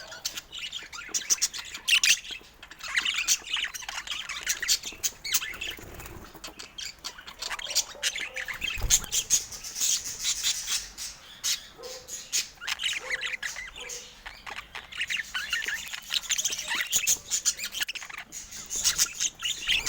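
Budgerigars chirping, warbling and squawking without a break, many short overlapping calls. A brief low thump sounds about nine seconds in.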